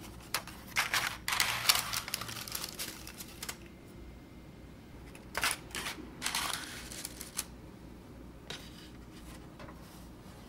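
Pleated paper liners rustling and crinkling as they are pressed down into stainless steel oval cake rings. The sound comes in two main stretches of rustling and a fainter one near the end.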